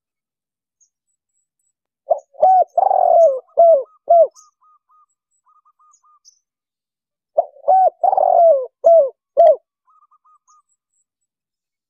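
Spotted dove (tekukur) cooing: two song phrases a few seconds apart, each about two seconds of short coos with one longer drawn-out coo in the middle. Faint short chirps follow each phrase.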